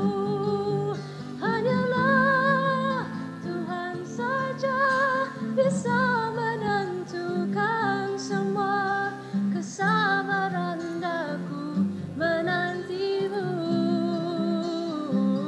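Live music: a slow melody sung with vibrato on long held notes, over a sustained chordal accompaniment.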